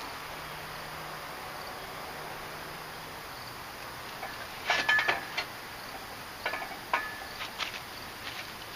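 Two clusters of sharp metallic clinks and knocks about halfway through, some ringing briefly, as steel parts of a truck crane's mounting base knock together. Before them there is only a faint steady hum.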